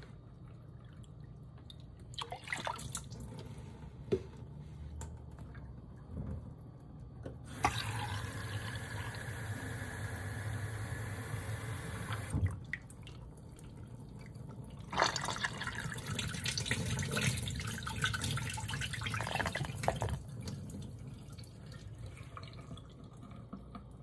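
Water from a kitchen faucet running into the open tank of a miniature ceramic toilet for about five seconds, then a second stretch of splashing water lasting about five seconds. Small splashes and clinks fall in between.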